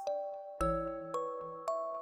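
Background music: a light, chiming melody of single notes struck about every half second, each ringing on, with a low bass note under the first.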